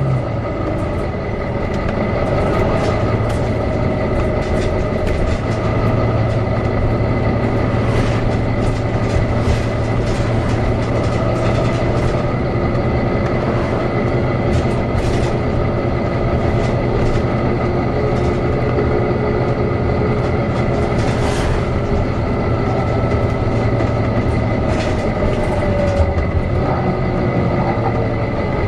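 Volvo B9TL bus engine running with a steady high whine from its cooling fan, with scattered clicks and rattles.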